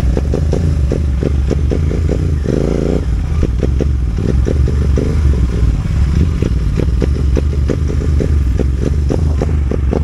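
Royal Enfield Continental GT 650 parallel-twin with a loud aftermarket exhaust, the throttle worked on and off to make a fast string of exhaust pops and crackles over the engine's low rumble. It is played as a rhythm meant to sound like a dhol drum beat.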